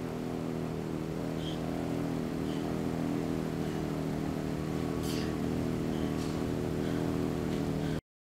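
A steady engine or motor drone running evenly with a low hum, cutting off abruptly near the end.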